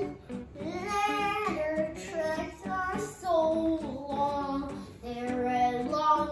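A young boy singing a tune in long, gliding notes, with a short break about five seconds in.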